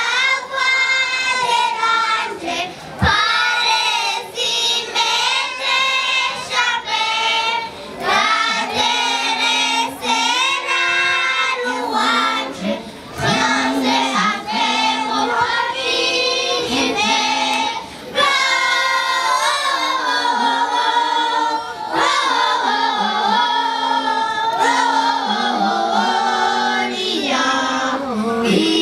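Children's choir singing in unison phrases, with a few brief pauses for breath between phrases.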